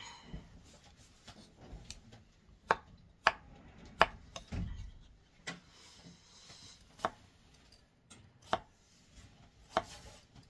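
Kitchen knife slicing fruit on a wooden cutting board: a series of sharp, irregularly spaced knocks as the blade hits the board, roughly one a second.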